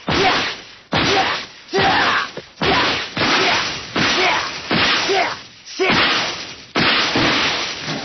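Anime fight sound effects: a quick series of about eight swishing blows and hits, roughly one a second, each starting sharply and fading away.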